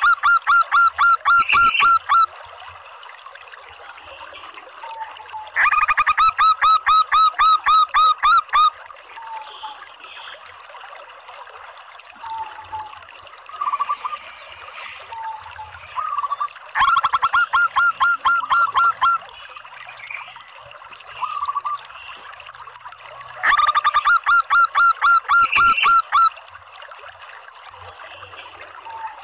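Female zebra dove (local perkutut) calling: four loud bouts of rapid staccato coos, each lasting two to three seconds, with softer single coos between the bouts.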